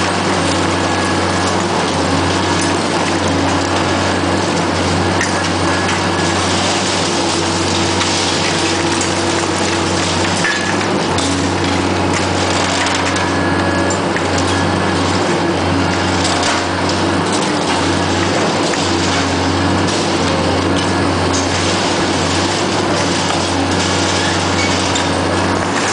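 Hydraulic concrete crusher jaws on a demolition excavator crunching through a reinforced-concrete floor slab, with irregular cracking of breaking concrete over the machine's steady engine hum.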